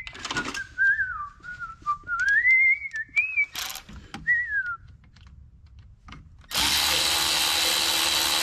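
A person whistling a wandering tune for about five seconds, with a few light tool clicks. Then, about six and a half seconds in, a cordless electric ratchet starts and runs steadily at full speed, loosening a small fastener on a 6 mm socket.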